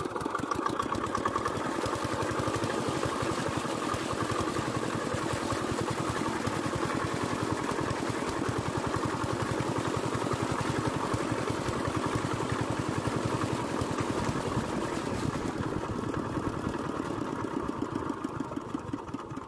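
Small single-cylinder engine driving a water pump, running steadily with a fast, even firing beat. The pump is discharging water through a pipe.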